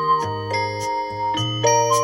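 Instrumental music: a bright bell-like melody of short held notes over a sustained bass line, the notes changing every quarter to half second.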